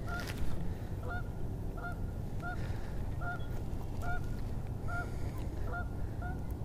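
A goose honking over and over, a short call about every three quarters of a second, nine or so in a row, over a low steady rumble.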